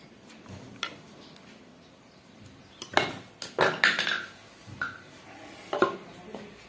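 Scattered light metallic clinks and scrapes from handling a coil of thin shower-heater resistance wire as it is pushed back along its winding, loudest in a cluster about three to four seconds in.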